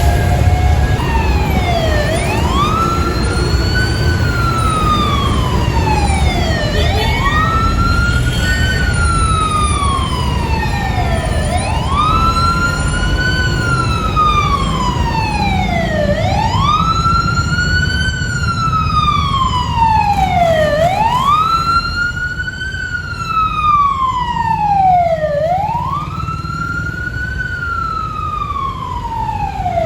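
Fire truck siren wailing, its pitch rising and falling slowly about every four and a half seconds, over a low rumble of engine and road noise.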